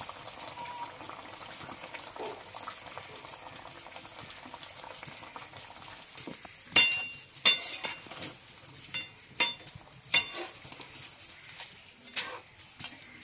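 Chicken and spices cooking in a pot with a faint steady bubbling, then a metal spoon clinking sharply against the pot several times in the second half as the pot is stirred.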